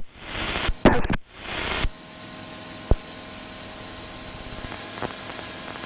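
Single-engine light aircraft's engine and propeller in cruise, heard in the cockpit as an even rushing drone. A few short bursts of noise come in the first two seconds, and a single sharp click comes about three seconds in.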